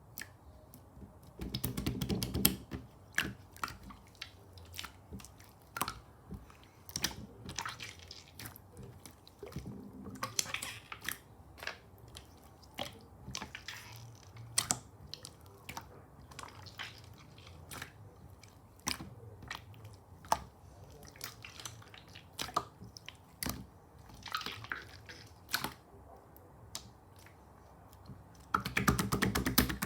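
Hands squishing and pressing clear slime, making wet sticky clicks and air-bubble pops at irregular intervals, with denser crackling flurries about two seconds in and near the end.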